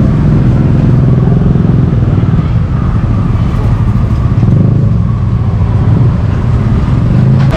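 Motorbike engine running steadily close by, a low, even drone.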